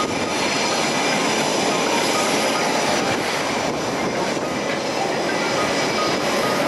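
Aircraft engine noise from an airshow display aircraft, a steady, even sound with no breaks or sharp changes.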